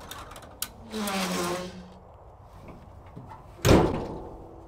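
Pickup truck camper shell's rear glass hatch being opened: a click, then a creak as it swings up about a second in. A loud sudden clunk of metal follows near the end.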